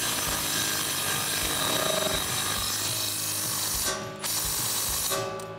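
Ratchet wrench tightening a bolt on the front suspension: a steady run of ratcheting for about four seconds, a brief stop, then about a second more.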